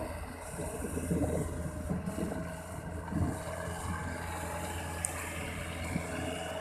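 Engine running steadily with a low hum, with wind buffeting the microphone and a single sharp click about five seconds in.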